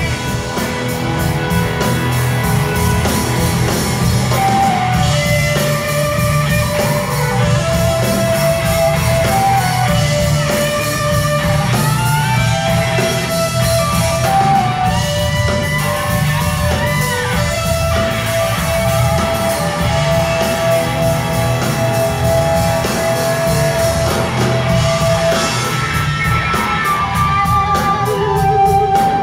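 Loud live rock music in a large hall: an electric guitar lead playing long held notes, some of them bent, over a heavy low rumble of bass and drums.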